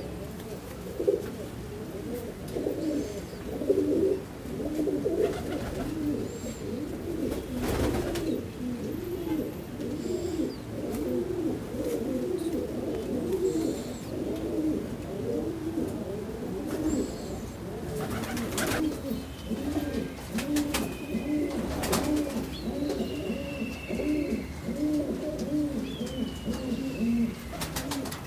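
Many domestic pigeons cooing, their rounded coos overlapping one another continuously, with a few sharp clicks standing out.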